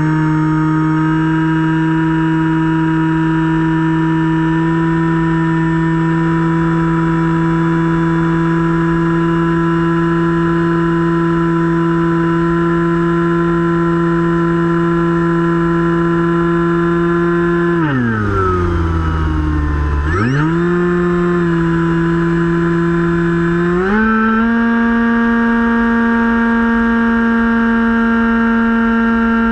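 Finwing Penguin RC plane's electric motor and propeller whining steadily in flight. About eighteen seconds in, the pitch drops sharply as the throttle is cut, then rises again two seconds later. A few seconds after that it steps up to a higher pitch under more throttle.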